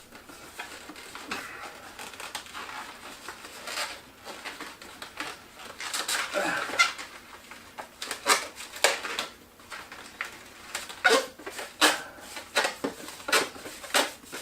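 Latex twisty balloons squeaking as they are rubbed, twisted and bent into shape. There is a longer squeal about six seconds in, then a run of short, sharp squeaks through the second half.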